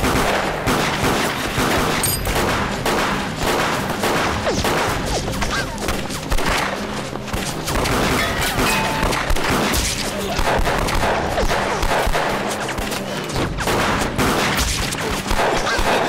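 Gunfight with handguns: many pistol shots from several shooters fired in quick, overlapping succession, without a break.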